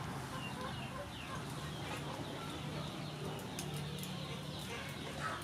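Background birds chirping and chickens clucking, with a few light clicks of a ladle against a metal cooking pot a little past the middle.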